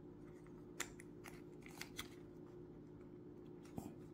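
Several light plastic clicks and scrapes, spaced irregularly, as a suction-cup mount is slid onto the back of a small dash cam, over a faint steady hum.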